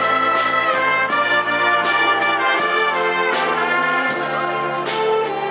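High school band playing a pop tune, with trumpets and trombones carrying sustained chords and melody over percussion hits that keep a steady beat.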